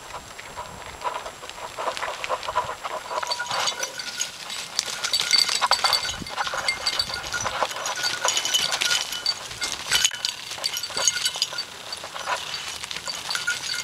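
Goats' hooves clattering and scuffing on rocky ground as two pack goats move about and jostle. From about three seconds in there is a busy run of clicks and knocks, with light jingling from their collars.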